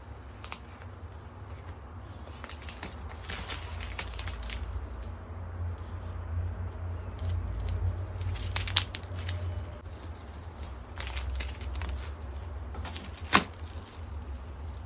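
Painter's tape being peeled off a freshly painted edge, with crinkling and tearing rustles, and one sharp tap near the end.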